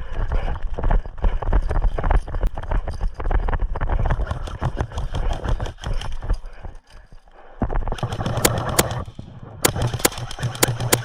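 Airsoft electric rifle, a stock KWA QRF Mod 1, firing long full-auto bursts: a fast rattle of shots that stops briefly about seven seconds in, then resumes, with a few sharp separate cracks near the end.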